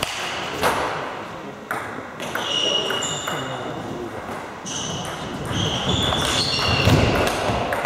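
Table tennis ball being served and rallied: sharp clicks of the celluloid ball off bats and table, with a few short high squeaks, over background chatter of voices.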